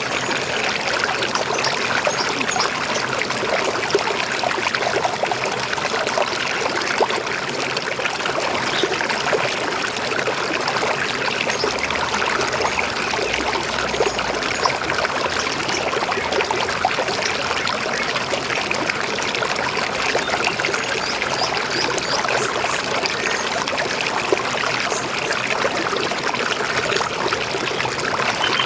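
River flowing: a steady rush of water with constant small gurgles and splashes.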